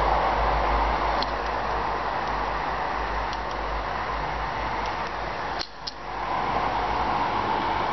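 Steady noisy hiss, with a few faint clicks and a brief drop-out a little after halfway.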